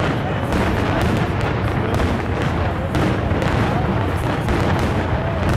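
Fireworks display, shells bursting in a rapid, continuous barrage of booms and bangs over a low rumble, with voices in the crowd underneath.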